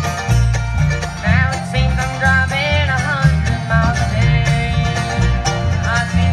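A bluegrass band playing live: banjo, mandolin and acoustic guitar picking over a steady upright bass line.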